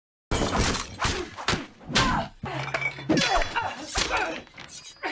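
A film fight's sound effects: a rapid run of blows, thuds and crashes with things breaking, with a woman's grunts and cries mixed in, tailing off near the end.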